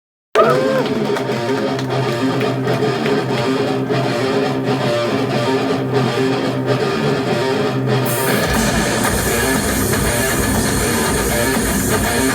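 Rock band song opening: an electric guitar starts abruptly out of silence, picking and strumming over a held low note. About eight seconds in, the full band with drums comes in.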